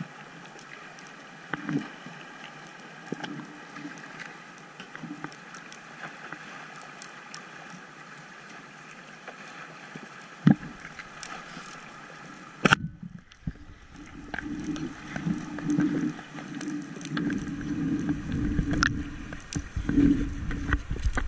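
Underwater hiss with scattered small clicks, broken about halfway through by two sharp cracks some two seconds apart: a band-powered Salvimar Predathor Vuoto speargun being fired. After the cracks comes a louder, uneven, low churning of water.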